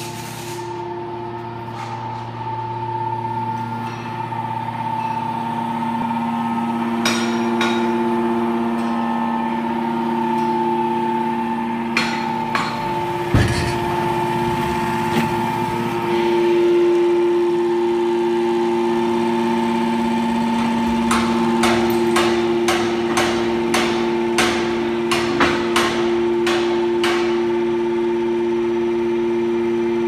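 Hydraulic power unit of a 200-ton metal shaving baler running with a steady hum. Sharp knocks come and go over it, with a quick run of them late on.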